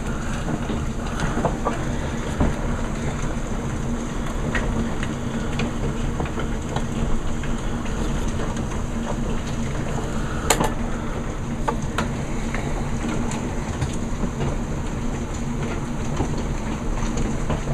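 Hailstones of about quarter size pelting down steadily: a dense clatter with scattered sharper individual hits.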